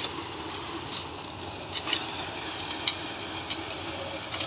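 Sugarcane harvester and its attendant truck running steadily while cutting cane, an even engine noise with scattered sharp light ticks and crackles over it.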